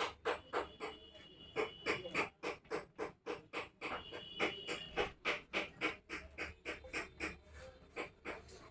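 Irregular run of sharp clicks and taps, about three or four a second, with a faint high tone sounding twice.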